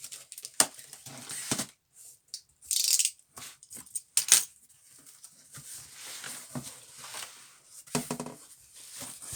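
A large cardboard box being opened by hand: scattered knocks and rustling, a short ripping sound about three seconds in, and a sharp snap just after it.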